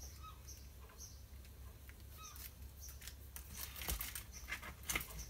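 Hands handling fishing tackle on a bench: a run of small clicks and rustles that starts about halfway through and is loudest near the end.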